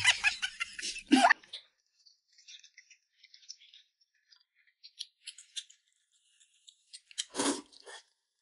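A whistle-like sound that stops about a second in, then light scattered clicks of chopsticks against porcelain noodle bowls as the noodles are stirred, and a short, louder noise about seven seconds in.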